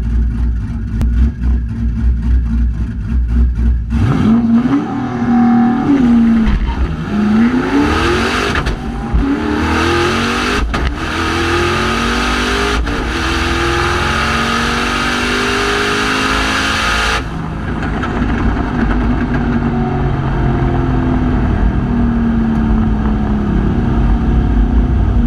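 Twin-turbocharged Camaro V8 on about 15 psi making a quarter-mile pass, heard from inside the car. It rumbles low at the start line, launches about four seconds in with the revs climbing and falling through the first shifts, among them a troubled shift into second, then runs loud at full throttle with a strong rushing noise. About seventeen seconds in the rushing cuts off suddenly as the throttle closes, and the engine runs lower for the rest.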